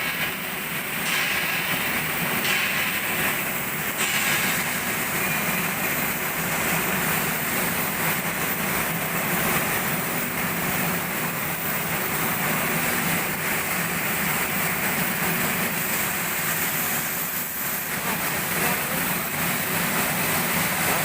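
Steady mechanical noise of a ship repair workshop, an even rushing din with no clear rhythm or pitch.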